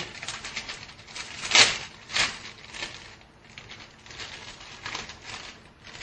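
Plastic instant-noodle packet being crinkled and torn open: a run of crackling rustles, the loudest about one and a half and two seconds in.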